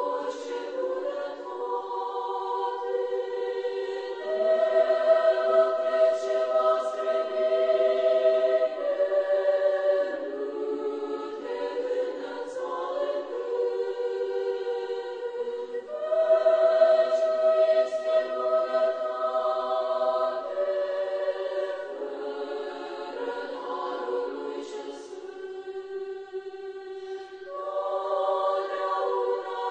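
A choir singing slow, long-held chords, with the harmony changing every few seconds.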